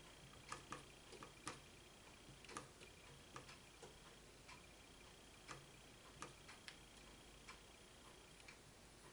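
Near silence: room tone with faint, irregular small clicks and taps, a few a second at most, and a faint steady high whine.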